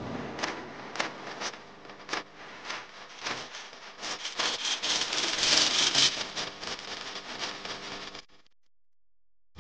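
Handling noise of craft materials on a wooden tabletop: scattered clicks and knocks, then a denser stretch of rubbing and scraping about four seconds in. It cuts off suddenly shortly before the end.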